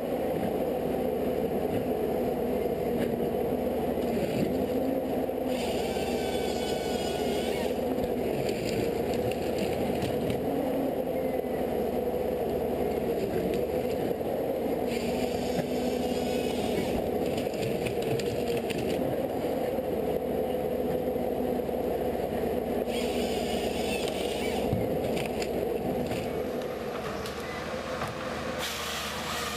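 A machine running steadily, with a higher-pitched wavering sound that comes and goes about three times.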